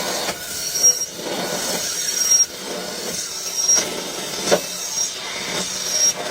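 Lathe cutting steel, the tool on the metal giving short high-pitched squeals that recur about once a second over a noisy metallic grinding.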